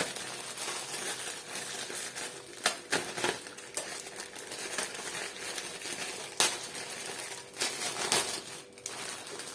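Takeaway food packaging being unwrapped and opened: a continuous crinkling and rustling of plastic, broken by several sharp clicks.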